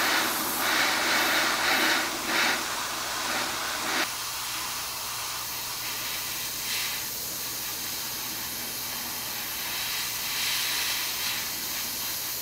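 Gravity-feed airbrush hissing as it sprays dark gray paint. The hiss swells and eases over the first four seconds, then runs steadier and a little softer.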